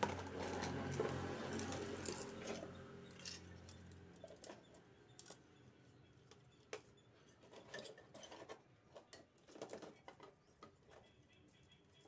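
A steady low hum for the first few seconds, then scattered light clicks and rustles of hands handling plastic motorbike speaker units and their wires.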